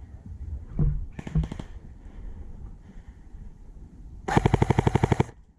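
Airsoft rifle firing: a short burst of a few shots about a second in, then a rapid full-auto burst of about fifteen shots lasting just under a second near the end.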